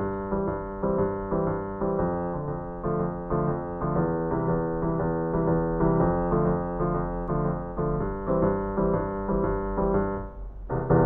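Piano intro music: a steady run of struck notes and chords. It thins out briefly near the end and then gives way to a loud, sustained ringing chord.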